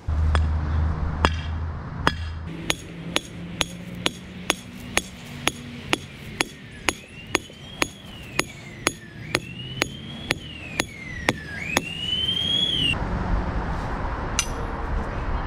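A steel ground-anchor stake being driven into the lawn with a hand sledgehammer: a steady run of sharp blows, about two a second, stopping about twelve seconds in.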